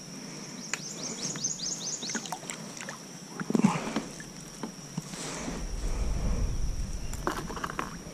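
Handling noise on a plastic fishing kayak: scattered knocks and clunks of paddle, rod and gear against the hull, the loudest a thump about three and a half seconds in, with a low rumble for a couple of seconds near the end. About a second in, a bird gives a quick run of falling chirps.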